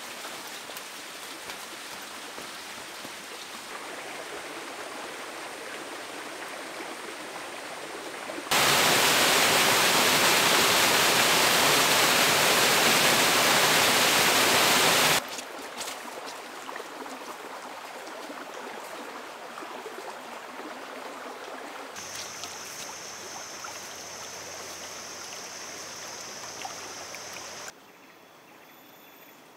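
Steady rush of flowing stream water, much louder for about seven seconds in the middle. A steady high-pitched buzz joins it for several seconds near the end.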